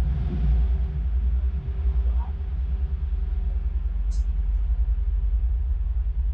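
Steady low rumble of a passenger ship's engines, heard on board as the vessel comes in to port.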